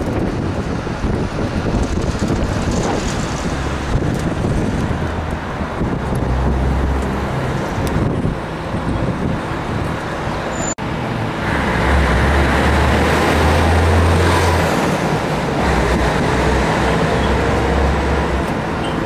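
City street traffic noise: a continuous rumble of passing motor vehicles. It breaks off abruptly about eleven seconds in and comes back louder, with a heavier low rumble.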